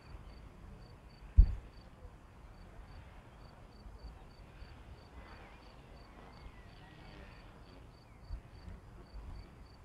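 Cricket chirping in a steady rhythm of short high pulses, about three a second, over a faint outdoor hiss. A sharp low thump comes about one and a half seconds in, and two softer low thumps come near the end.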